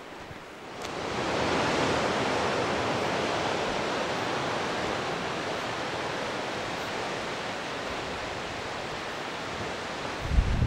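Steady rush of sea surf washing against the rocky cliffs below, swelling in about a second in and easing slowly. Near the end, wind buffets the microphone with low rumbles.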